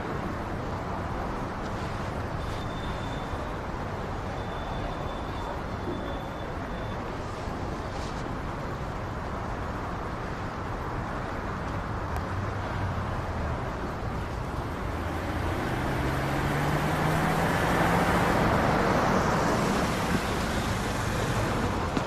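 Road traffic: a steady hum of cars on wet pavement, swelling about three-quarters of the way through as one vehicle passes close with its engine note rising.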